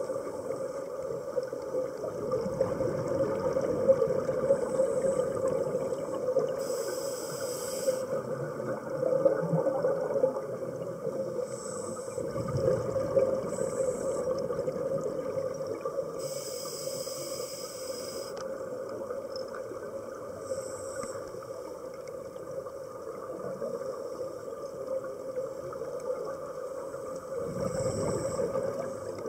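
Scuba breathing heard underwater: a regulator hissing with each inhale every few seconds, and the low bubbling rumble of exhaled air, over a steady crackling underwater noise.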